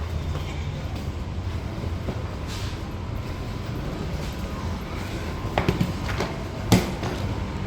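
Steady low rumble of a passenger train, with a few clicks a little over five and a half seconds in and one sharp knock just under seven seconds in.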